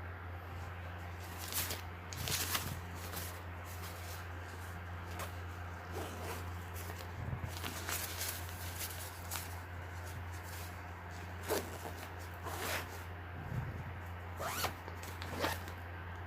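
Zipper pulled in short strokes, several times, as a bag or packing pouch is opened and closed, over a steady low hum.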